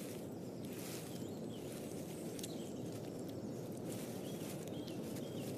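Quiet natural ambience: a low steady rumble and hiss with faint, small high chirps and light ticks scattered through it.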